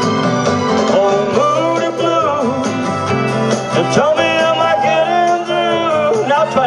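Music: a male voice singing a country-flavoured rock song with a wavering, held vocal line over steady guitar-led accompaniment.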